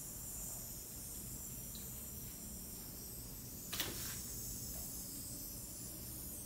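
Faint steady hiss of a small handheld battery-powered mist sanitizer sprayer running, with one short sharp click or brush a little under four seconds in.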